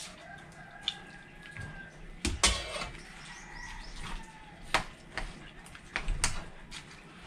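Spoons and forks clicking and clinking against plates and a serving pot as people eat, about half a dozen separate clinks.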